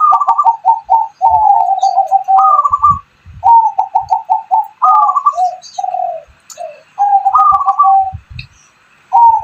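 Dove in full song, cooing phrase after phrase of short, quick staccato notes with a few brief pauses between phrases. Faint chirps from small birds and a few low thumps sound alongside.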